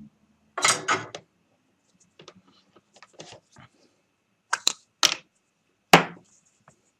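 Small tools and parts being handled on a workbench during circuit-board soldering: a rustling clatter about half a second in, then a few sharp clicks and knocks, the loudest about six seconds in.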